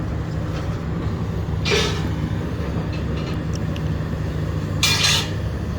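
Engine of a scrapyard grapple machine running with a steady low drone, with two short hissing bursts, one about two seconds in and one near the end.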